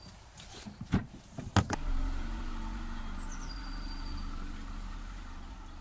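Two sharp knocks, then a car engine starts up about two seconds in and runs steadily with a low rumble.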